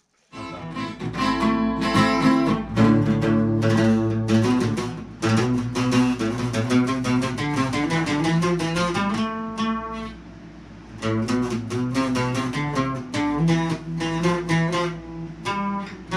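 Acoustic guitar picked in quick melodic runs and fills (adornos). It goes quieter for about a second around ten seconds in, then resumes.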